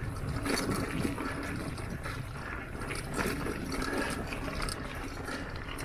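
Mountain bike riding a dirt trail: a steady rushing rumble of wind and tyre noise, with scattered clicks and rattles from the bike.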